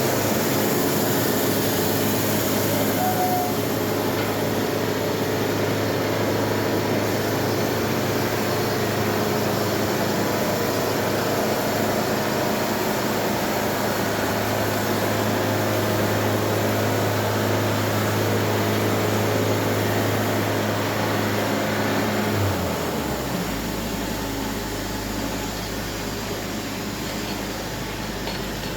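An engine running steadily at high speed with a constant hum, then dropping to a lower, slower idle about 22 seconds in.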